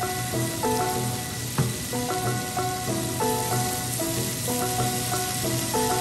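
Bitter melon and sardines sizzling steadily in a hot frying pan, stirred with a wooden spatula, with background music of a melody in changing held notes.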